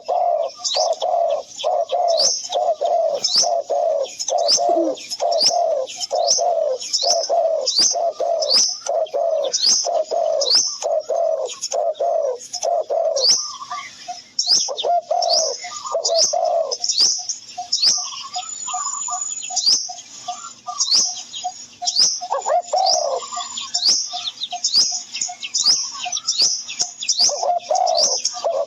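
Birds calling steadily: quick high chirps falling in pitch, about two a second, over lower repeated calls that turn into faster, thinner pulses through the middle and come back fuller near the end.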